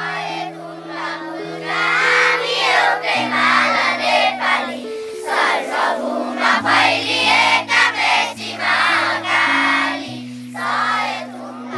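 A group of children singing together in chorus over sustained instrumental chords that change every second or two.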